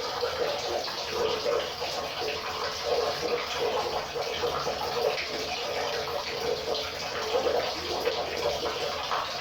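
River water flowing: a steady rush with quick, constantly shifting gurgles and ripples.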